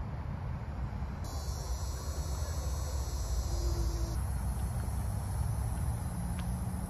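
Insects buzzing in a steady high-pitched chorus, with a louder buzz that starts about a second in and cuts off about three seconds later, over a low rumble.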